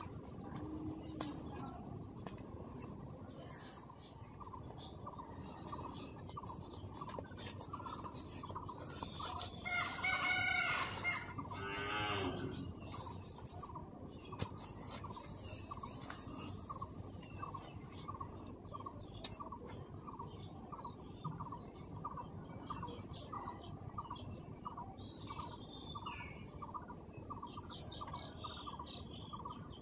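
A rooster crows once, about ten seconds in: a call of roughly three seconds that drops in pitch at its end. Small birds chirp faintly around it over a steady low outdoor hiss.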